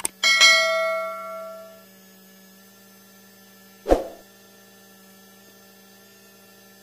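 Subscribe-button sound effect: a mouse click, then a bell chime that rings out and fades over about a second and a half, and another click about four seconds in. A steady low hum runs underneath.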